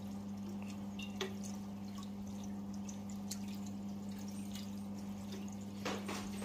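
Liquid phytoplankton poured from a bottle into its cap and tipped into a reef tank: small pours and drips over a steady low hum, with a light knock near the end as the cap is set down.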